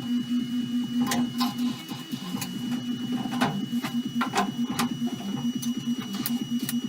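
A power tool running with a steady, evenly pulsing hum, with scattered sharp clicks and scrapes, typical of bodywork on a car shell.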